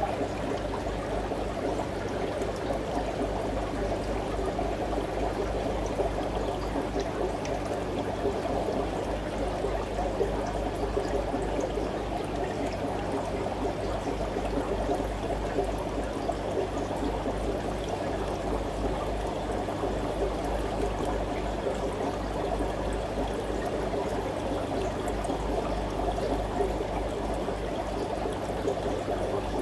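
Aquarium water circulating: a steady trickling, pouring sound of flowing water, with a low steady hum underneath.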